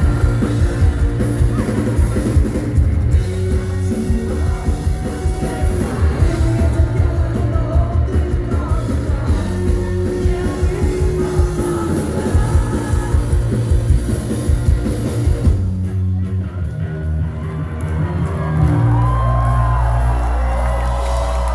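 Rock band playing live in a large hall: pounding drums, guitars and shouted singing. About sixteen seconds in the drumming drops away, and near the end a low note is held with a few sliding higher tones over it as the song closes.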